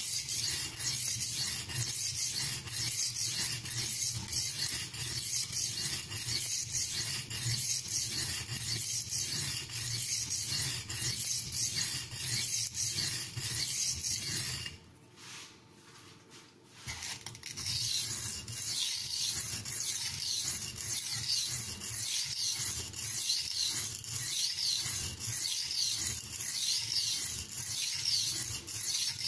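Carbon-steel knife blade stroked back and forth on an oiled Norton India oilstone, a rhythmic scraping at about two strokes a second, with a pause of about two seconds midway. The blade is dull and is still being ground down toward the apex.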